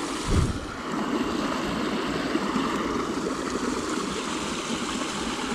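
Steady rush of flowing river water, with one brief low thump about half a second in.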